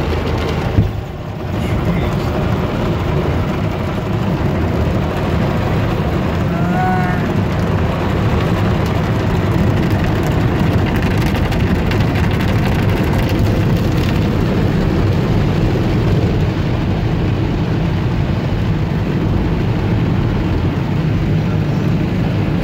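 Automatic car wash running over a car, heard from inside the cabin: a steady, loud rush of water jets and wash machinery against the glass roof and body. A single sharp knock about a second in is followed by a brief dip in the noise.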